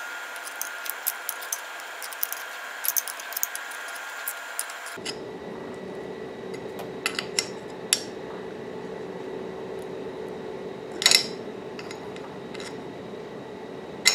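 A small wrench clicking and clinking against metal as the little nuts holding a pneumatic switch block to a milling machine are tightened, in short scattered ticks with a louder clink about eleven seconds in. A steady background hum runs underneath and changes abruptly to a lower one about five seconds in.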